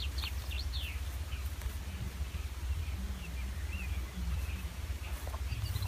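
Steady low rumble of wind on the microphone, with small birds chirping in short falling notes now and then, most in the first second and again midway.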